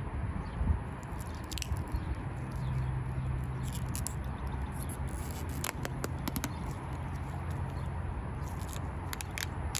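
Dried Plasti Dip-type rubber coating being picked and peeled by fingers off a chrome truck emblem: soft sticky peeling and crackling with irregular small clicks, over a low steady hum.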